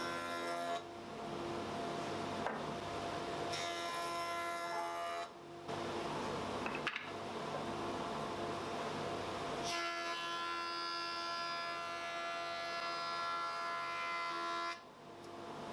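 Stationary woodworking machine running steadily, with walnut and maple boards fed through it in several passes; during each pass a higher, tone-rich cutting sound is added over the motor, for about five seconds on the last and longest pass.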